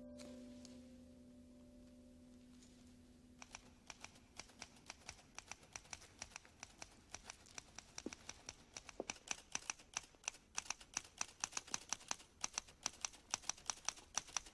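The tail of soft music fades out, then about three seconds in a typewriter starts clacking: a quick, uneven run of key strikes, several a second, growing louder.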